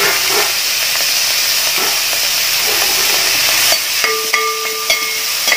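Sliced onions, shallots and green chillies sizzling steadily in hot coconut oil in a metal pot, with a metal ladle stirring and knocking against the pot a few times near the end. A faint steady tone joins the sizzle about four seconds in.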